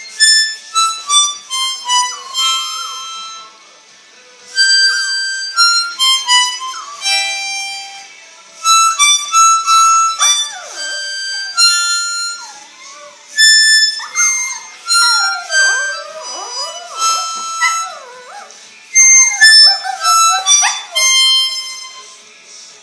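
Harmonica played in short phrases while a dog howls along. The dog's wavering, sliding howls come in mostly from about ten seconds in, over the harmonica notes.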